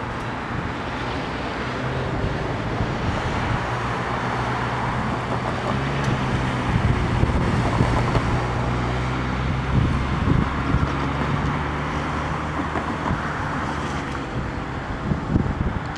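Steady low engine drone that shifts slightly in pitch about six seconds in, over a broad rumble of road or wind noise.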